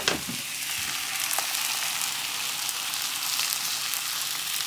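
Eggs and turkey fillet slices frying in butter in a nonstick pan, a steady sizzle with faint crackles. A brief click right at the start.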